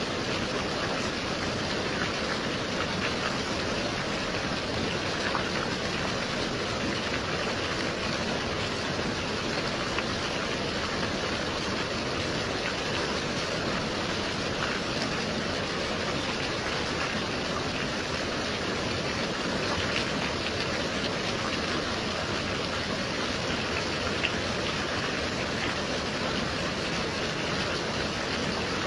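Steady gentle rain, an even hiss with scattered individual drops ticking through it.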